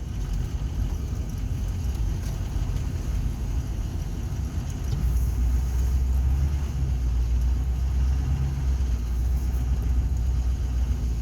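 Car driving, heard from inside the cabin: a steady low engine and road rumble that grows louder about halfway through.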